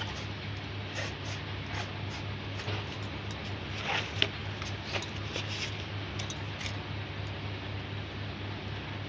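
Steady low hum with scattered light clicks and taps, and one sharper click about four seconds in.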